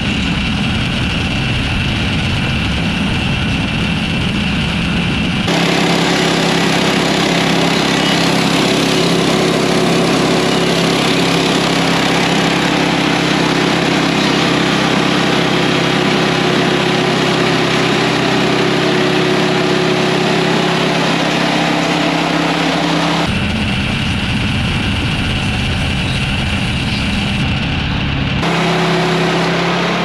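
Woodland Mills HM130MAX bandsaw sawmill running: its 14 hp Kohler engine held at high revs while the band blade cuts through a log. The sound is steady with abrupt shifts in tone about 5 s and 23 s in.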